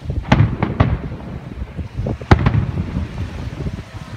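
Aerial fireworks shells bursting: three bangs in quick succession under a second in, then a single louder bang a little past two seconds, over a low rumble of wind on the microphone.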